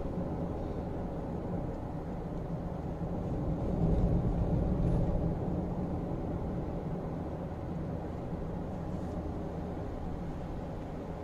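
Steady low rumble of a car's engine and tyres heard from inside the cabin while driving, growing louder for a second or two about four seconds in.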